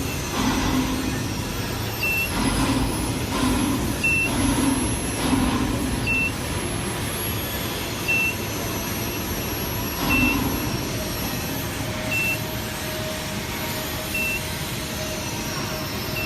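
A short high electronic beep repeating evenly about every two seconds over a steady mechanical rumble.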